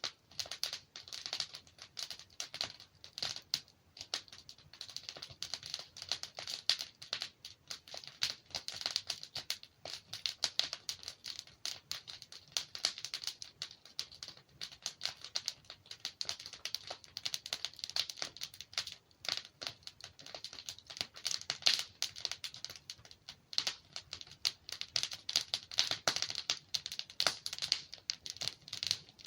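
Wood fire crackling: a dense, irregular run of small snaps and pops from burning logs.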